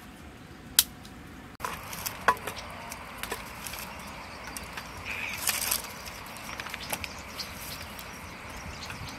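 Scattered light clicks and knocks of dry sticks being handled and laid on a small open wood fire, with a brief louder rustle about halfway through.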